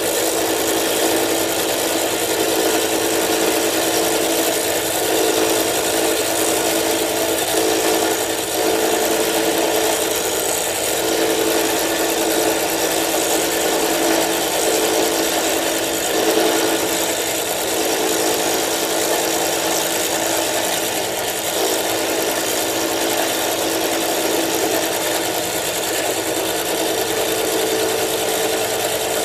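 Milling machine running steadily, its cutter milling the lock relief into a frame lock knife's frame, a constant machine hum under a continuous cutting noise.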